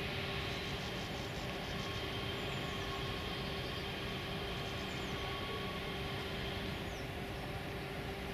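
Steady background rumble of distant city traffic, an even drone with a few faint constant hums running through it.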